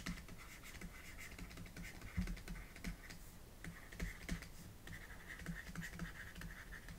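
Faint, irregular taps and scratching of a pen stylus on a tablet as words are handwritten.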